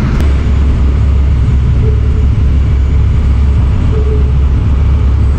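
Passenger ferry's engine running with a steady, loud low rumble, heard on board.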